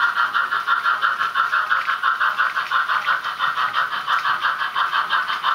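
Steam exhaust chuffing from the Soundtraxx Tsunami TSU-1000 sound decoder in an HO scale 2-6-0 model locomotive, a steady rhythm of about five or six chuffs a second played through the model's small speaker, so thin with little bass.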